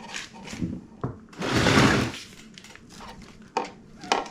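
Rear air shock being cycled with the shock pump on it: scattered clicks and knocks, and a short rush of air hiss about one and a half seconds in, the loudest sound.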